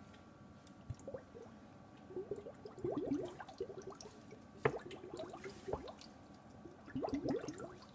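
Faint handling noise of a plastic LEGO figure being moved by hand: clusters of soft clicks and squishy rubbing, loudest around three seconds in, near five seconds, and around seven seconds.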